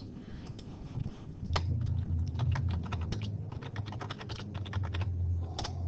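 Typing on a computer keyboard: a quick run of keystrokes beginning about a second and a half in, entering numbers, over a low steady hum.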